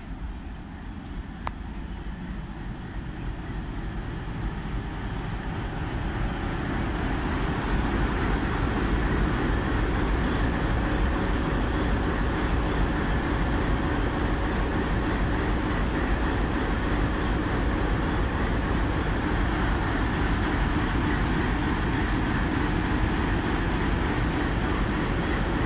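WDG3A Alco diesel locomotive's 16-cylinder ALCO 251 engine, getting louder over the first several seconds as the locomotive comes up alongside, then running loud and steady as it passes close by at shunting speed.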